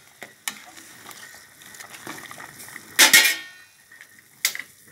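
A ladle stirring a pot of boiling broth and knocking against the aluminium pot, with a few light clinks and one louder, briefly ringing clank about three seconds in.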